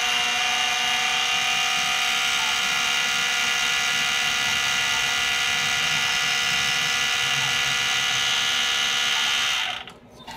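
Cheap benchtop mini lathe running, its motor and gear train giving a steady high-pitched mechanical whine. It is switched off near the end and the sound drops away quickly as it spins down.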